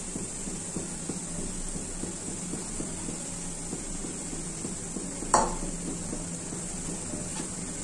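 Besan (gram-flour) phuluri fritters deep-frying in hot oil: a steady, soft crackling sizzle of bubbling oil. A single sharp clink comes a little past five seconds in.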